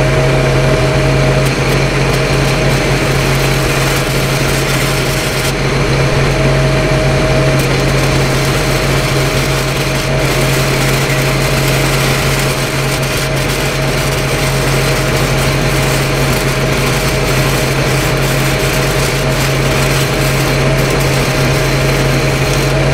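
Engine-driven welding machine running steadily under load, with the steady hiss of an arc welding a 12-inch pipe branch joint.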